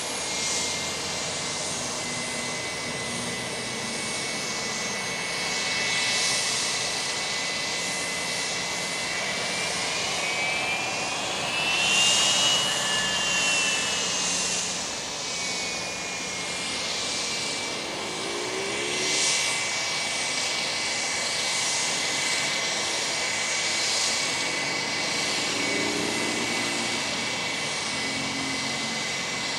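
The twin Honeywell HTF7350 turbofans of a Bombardier Challenger 350 business jet whining at taxi power. It is a steady high whine over a rushing roar that rises in pitch and gets louder about twelve seconds in as the engines spool up briefly, then settles back to the lower whine.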